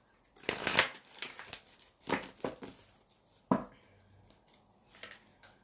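A deck of oracle cards being shuffled and handled, making three short rustling bursts about a second and a half apart and a softer one near the end.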